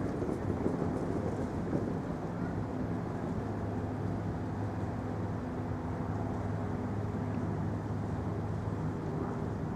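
Steady low rumble of a vehicle engine running, with a constant hum and street noise.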